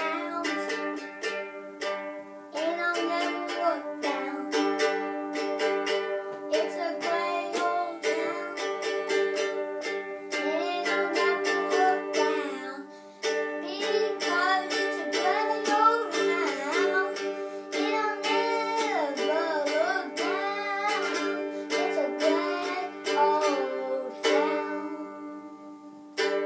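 A solo song: a strummed string instrument, likely a ukulele, playing steady chords while a voice sings a wavering melody over it. Near the end the playing stops and the last chord rings out and fades.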